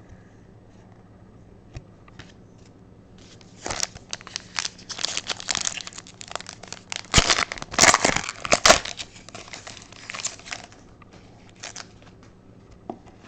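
Hockey card pack wrapper being torn open and crinkled, a dense crackling run from about three and a half to ten and a half seconds in, loudest near the middle, followed by a few light clicks.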